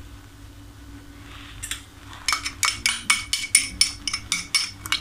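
Metal spoon knocking and scraping inside a small glass jar to get the garlic paste out. A quick run of sharp glassy clinks, several a second, starts about two seconds in.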